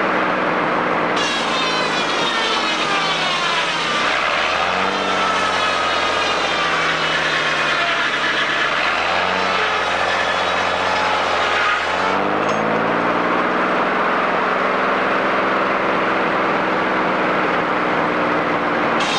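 Sawmill saw cutting through a log, its high whine dropping in pitch as it takes the load, over the steady running of the mill's engine. The blade comes out of the cut about twelve seconds in and spins free, and the next cut begins near the end.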